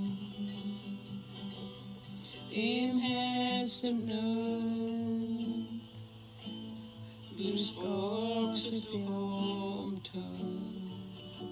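Two women singing a slow hymn in Gitxsanimx, holding long notes that glide between pitches.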